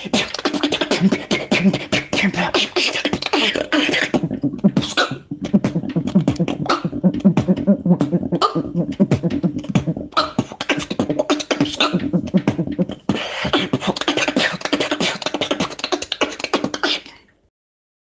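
Solo human beatboxing: a fast, dense run of vocal kick, snare and click sounds over a low buzzing vocal bass. It breaks off suddenly near the end.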